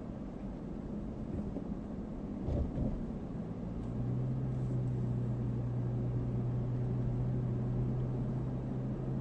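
Road and engine noise heard from inside a moving car: a steady low rumble. A couple of thumps come about two and a half seconds in, and a steady low hum sets in about four seconds in and holds.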